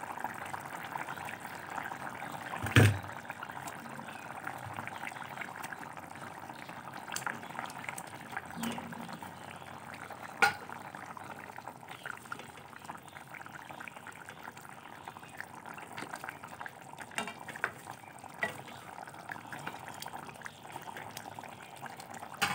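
Curry gravy with potatoes boiling steadily in a metal pan as fried rui fish pieces go in and are moved with a spatula. Occasional knocks and scrapes of the utensil against the pan break into the bubbling, and the loudest knock comes about three seconds in.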